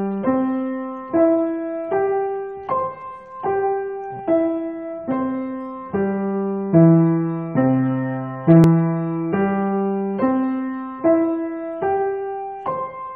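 Piano played as slow broken-chord arpeggios, one note at a time at an even pace, about one note every 0.8 s. The notes climb and fall in a repeating pattern.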